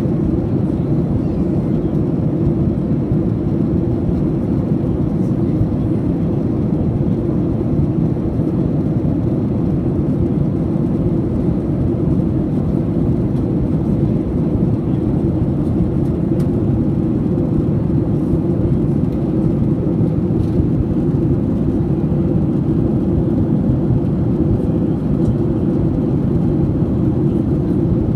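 Steady, low drone of an airliner cabin in cruise flight, the engine and airflow noise heard through the cabin, with a faint steady hum on top.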